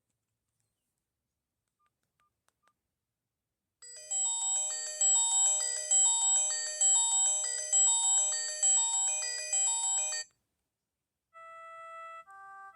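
Vortex Image phone ringtone: a bright electronic melody of quick notes in repeating phrases, starting about four seconds in and cutting off suddenly about six seconds later. About a second after it stops, a plainer tune of single beeping notes begins.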